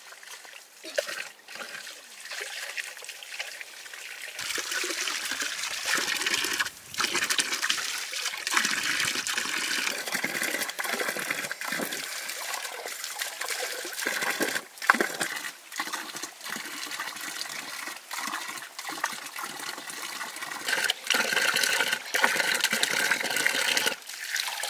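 Water running from a pipe spout and splashing onto a stone slab and over chayote roots as they are rinsed and rubbed by hand, with short splashes and knocks as the roots are handled. The water gets louder about four seconds in.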